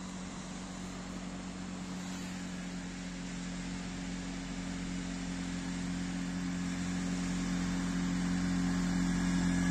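An engine running at a steady, unchanging pitch, growing gradually louder as it comes closer.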